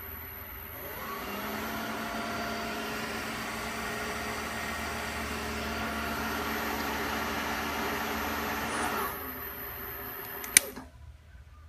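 Acer milling machine's 3 hp spindle motor on its variable-speed head with a Toshiba drive, coming up to speed about a second in, running steadily with a hum, then shutting off near the end. A single sharp click follows.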